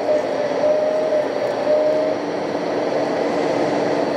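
Radio-controlled model excavator running as it digs into a sand pile: a steady mechanical whine that wavers a little in pitch, over the general din of an exhibition hall.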